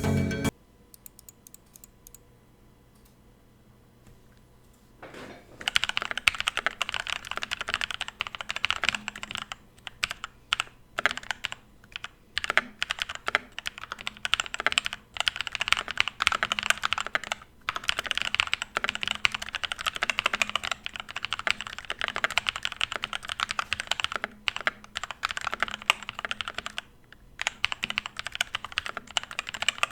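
Sharkoon Skiller SGK1 mechanical keyboard with Kailh Brown switches being typed on: a few faint clicks, then from about five seconds in a fast, continuous clatter of keystrokes, with a brief pause near the end.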